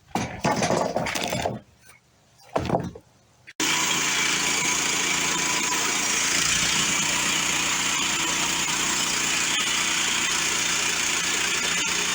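Gasoline engine of a MechMaxx portable bandsaw mill running at a steady speed, with a strong hiss over the engine note; it cuts in abruptly about three and a half seconds in and cuts off abruptly. Before it, two short bursts of rustling or scraping.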